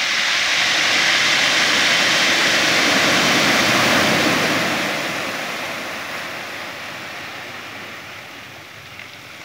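Surf: a wave breaking on a gravel beach. Its rushing hiss swells over the first few seconds, then fades away slowly as the water washes back over the stones.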